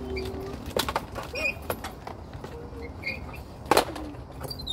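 Two sharp knocks, a fainter one about a second in and a louder one near the end, with short faint children's voices between.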